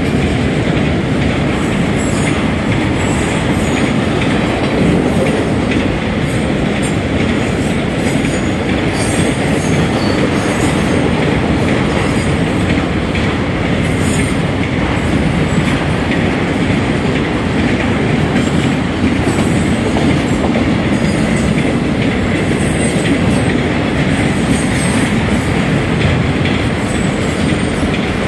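Union Pacific manifest freight train's auto rack cars rolling past close by: the steady noise of steel wheels on the rails, with brief faint high squeaks now and then.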